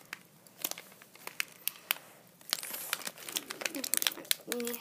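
A foil blind-bag packet being crinkled and pulled open by hand: irregular sharp crackles of the wrapper.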